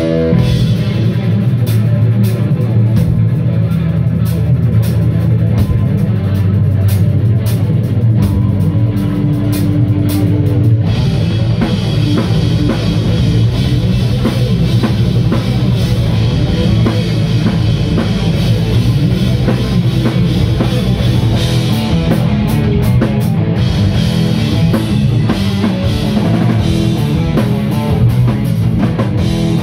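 Live instrumental rock: two electric guitars playing together over a drum kit, loud and continuous, with the band filling out about eleven seconds in.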